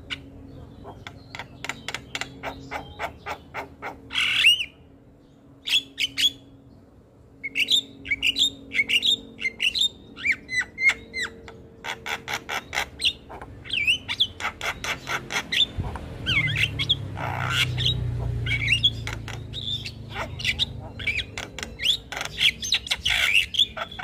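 Javan myna (jalak kebo) chattering in a continuous song: fast runs of clicks, then, after a short pause about five seconds in, whistled notes that bend up and down mixed with harsh calls. A low hum sits underneath, louder for a few seconds past the middle.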